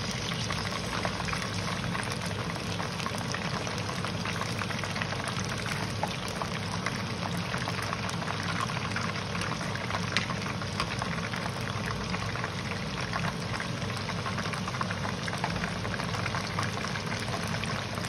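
Batter-coated chicken wings deep-frying in hot palm oil in a pan, a steady dense sizzle and crackle of bubbling oil. The wings are about five minutes into frying at medium heat, their coating setting as they start to float.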